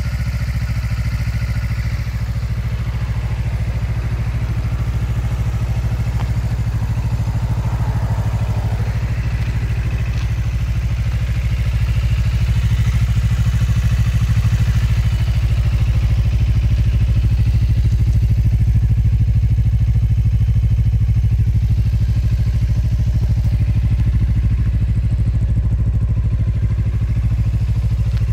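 Suzuki GSR250's 248 cc parallel-twin engine idling steadily through an aftermarket muffler, getting a little louder about twelve seconds in.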